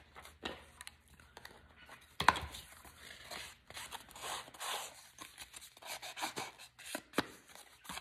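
Small ink pad rubbed and dabbed along the torn edges of a piece of paper to darken them, with irregular paper rustling and scraping. One sharp click about two seconds in, and a smaller one near the end.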